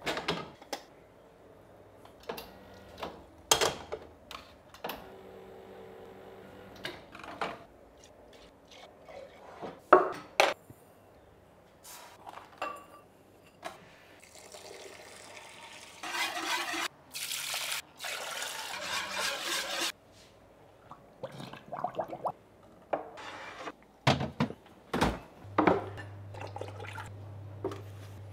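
Kitchen preparation sounds: scattered knocks and clatter of a stockpot and utensils, then liquid poured into the pot for several seconds. A steady low hum sets in near the end.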